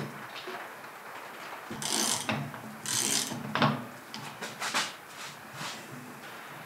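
Workshop handling of metal parts and tools: a click, two short scrapes about two and three seconds in, then a few sharp clicks and knocks.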